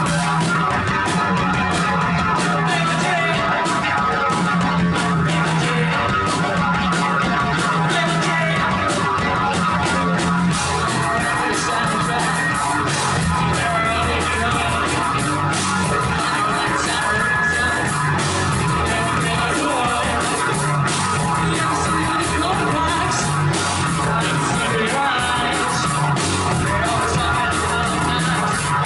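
A rock band playing live and loud, with electric guitar and drums driving through without a break.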